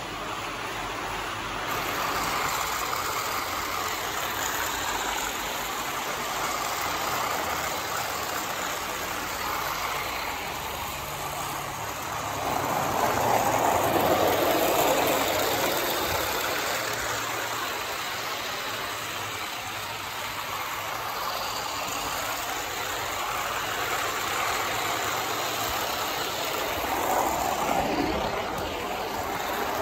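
Motorised cardboard model electric train running along cardboard track, a steady rumble of its motor and wheels that grows louder as it passes close about halfway through, with a second swell near the end.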